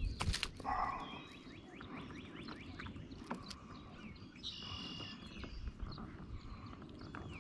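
Birds chirping and calling, many short quick chirps and one longer ringing call about halfway through. A few sharp clicks right at the start, over a low rumble.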